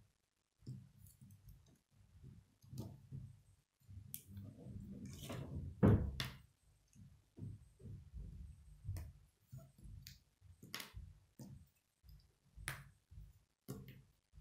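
K'nex plastic rods and connectors being handled and pushed together, giving irregular clicks and knocks over soft handling rumble. The sharpest snaps come about six seconds in.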